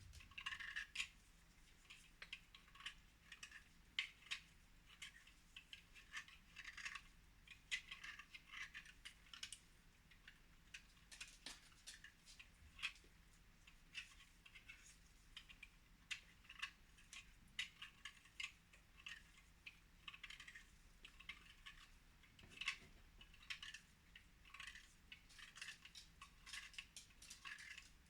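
Faint, irregular light clicks and crackles, several a second, like small scraping or handling sounds.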